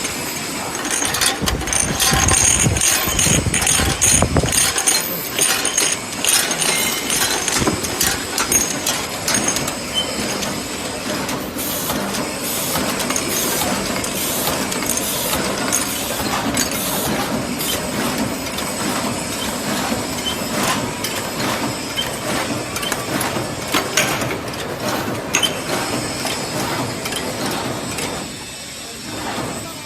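Fully automatic bottle cartoning machine running, packing bottles into cartons: a steady mechanical clatter of rapid clicks and knocks from its moving parts. A low rumble runs under it for the first few seconds, and the clatter drops off slightly near the end.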